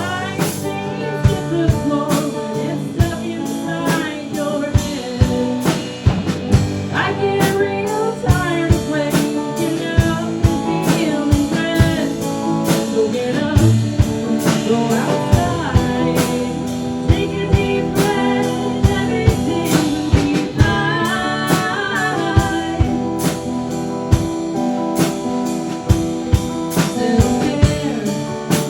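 A live band plays a blues-rock song: guitar and drum kit, with sung vocals. The drums strike at a steady beat.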